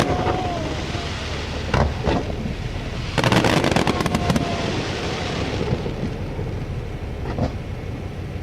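Aerial fireworks bursting: a couple of sharp bangs about two seconds in, then a quick cluster of crackling bursts a second later, and another bang near the end.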